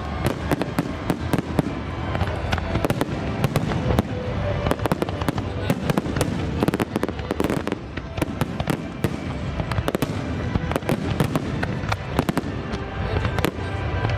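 Aerial fireworks display: many shells bursting at once in a dense, unbroken barrage of overlapping bangs and crackle.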